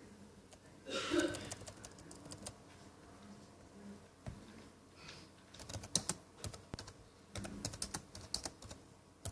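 Computer keyboard typing: scattered, irregular key clicks, thickest in the second half. A short breathy sound about a second in.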